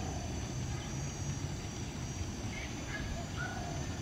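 Outdoor ambience: a steady low rumble with a few faint, short, high calls a little past halfway through.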